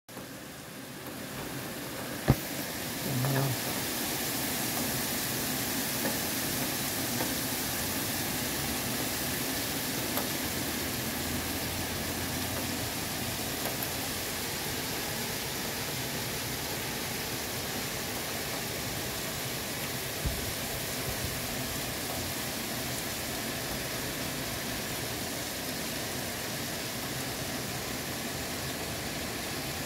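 Heavy rain pouring steadily onto paving, cars and roads, a continuous hiss. There is a single sharp knock a couple of seconds in.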